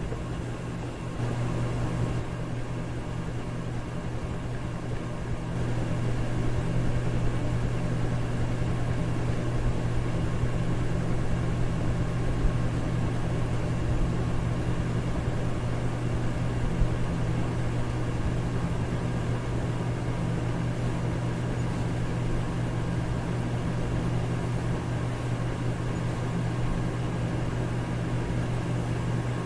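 Electric fan running steadily: a constant motor hum under an even whooshing hiss, stepping up slightly in level in the first few seconds.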